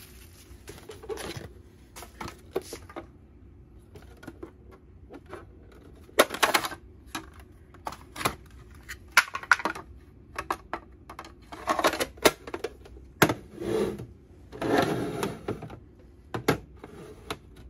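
Hard plastic toy boxes and their cardboard inserts being handled: irregular clicks and knocks with short scraping rustles as pieces are fitted, lifted and set down.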